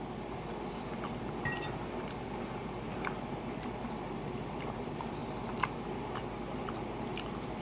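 A person chewing a mouthful of chili and rice, with scattered small clicks of a utensil against the dish.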